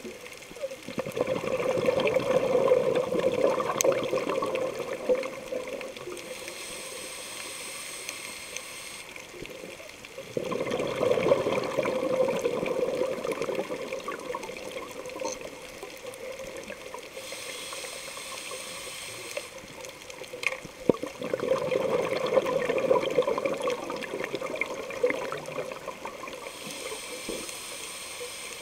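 Scuba diver breathing through a regulator underwater. Three long bursts of exhaled bubbles gurgle about every ten seconds, each followed by the quieter hiss of an inhale through the regulator.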